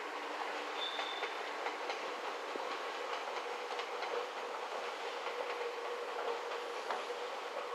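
A train running on the rails out of sight: a steady rolling noise with many small wheel clicks over the track and a faint steady whine that grows a little stronger in the second half.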